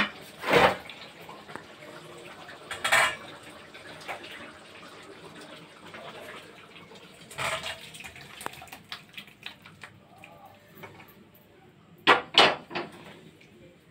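Metal cookware clanking as soybean curry is moved from an iron wok into a stainless-steel bowl with a steel ladle. There are several sharp clanks spread apart, two close together near the end, and quieter scraping and handling sounds between.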